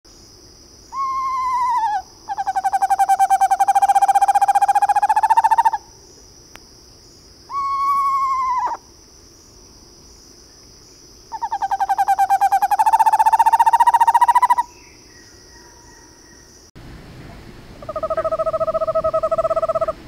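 Eastern screech-owl calling: twice, a short descending whinny followed by a long, even-pitched purring trill, the tremolo. Near the end comes another steady trill, a little lower.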